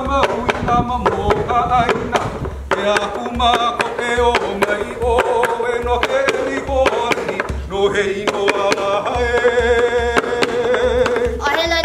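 Hawaiian mele chanted by one voice over an ipu heke (double gourd drum). The drum gives a steady beat of low thumps with sharper slaps between them, and the voice holds long, wavering notes.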